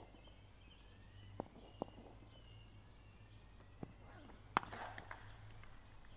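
A sharp crack of a cricket bat striking the ball, about four and a half seconds in, followed by a short burst of noise. Before it there are a few faint knocks over quiet open-ground ambience.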